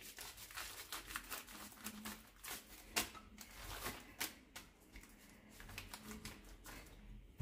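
Faint, irregular crinkling and crackling of plastic sheets as a wooden rolling pin is pushed back and forth over them, flattening a soft dough between the sheets.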